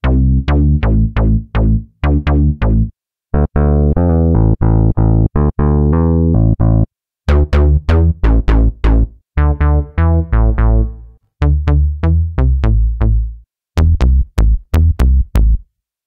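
u-he Diva software synthesizer playing bass presets: short phrases of quick, punchy staccato bass notes with a strong low end. Several brief pauses separate the phrases as one bass preset gives way to the next.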